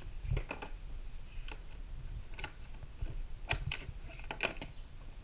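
Scattered light clicks and taps as a bungee cord's metal hook and clips are handled and clipped onto a fitting on a plastic kayak's deck beside a scuba tank, about half a dozen separate clicks, a few coming in quick pairs.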